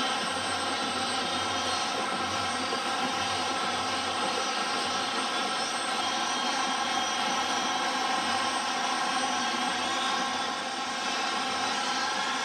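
F-16 fighter jet engines running on the ground with a steady high whine. Near the end one whine rises as an engine spools up.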